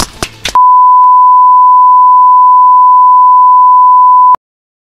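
A loud, steady, single-pitch test tone, the standard beep that goes with colour bars. It starts about half a second in after a few short clicks and cuts off suddenly near the end.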